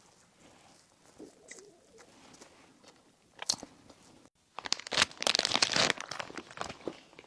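Close-miked eating of bakery bread and pastry: soft, quiet chewing, then a crisp crunch about three and a half seconds in. About four and a half seconds in comes a loud burst of dense crackling lasting about a second and a half.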